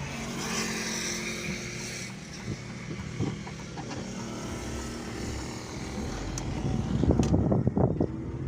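Volkswagen Fox car driving, heard from inside the cabin: a steady low engine hum with road noise, getting louder and rougher for a second or two near the end.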